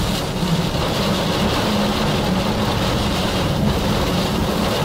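Tornado wind noise in storm-chase footage: a steady, loud roar with no break.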